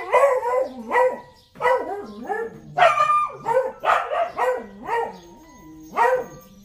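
A dog barking over and over, about ten barks, each falling in pitch, with a short pause before a last bark near the end.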